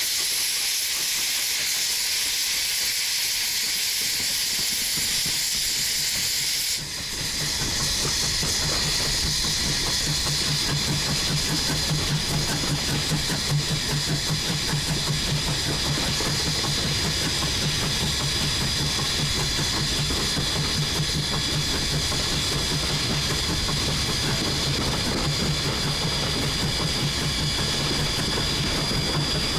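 Steam hissing loudly from the 1910 Swedish-built E2 steam locomotive for about the first seven seconds, then cutting off suddenly. After that the locomotive's steady running noise takes over, with a rhythmic low pulsing.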